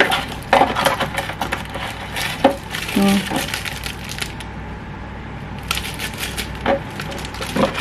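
Plastic camera accessories and their packaging being handled: a run of light clicks and taps, with a short lull just past the middle.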